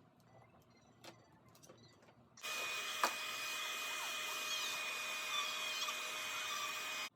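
A few faint clicks and taps, then a blow dryer running steadily with a whining hum over the rush of air. It comes on abruptly about two seconds in and cuts off abruptly just before the end.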